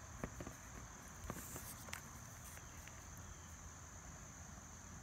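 Faint handling of a small plastic toy figure: a few light clicks and taps in the first two seconds, over a steady high-pitched drone and low rumble.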